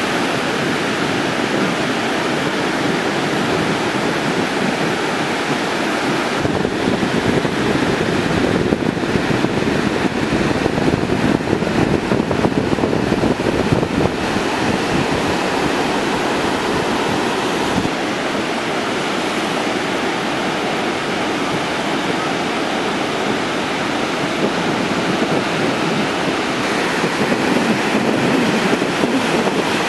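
Surf from a hurricane swell breaking on the beach: a steady, dense rush of rolling whitewater. Wind buffets the microphone, gustier from about a quarter of the way in to the middle and again near the end.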